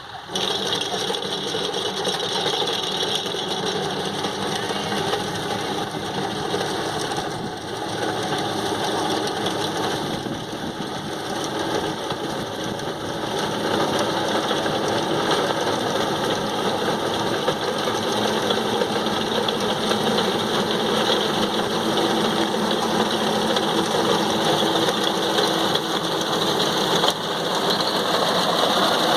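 Corn harvesting machine and its engine running steadily, a dense mechanical din that grows a little louder about halfway through.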